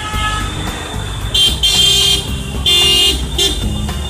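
Street traffic rumbling, with several short, shrill horn toots in quick succession between about one and a half and three and a half seconds in.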